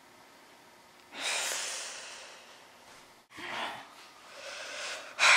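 A person sighing and breathing heavily through the mouth: one long breathy sigh about a second in that fades out, then shorter breaths, and a louder one starting near the end.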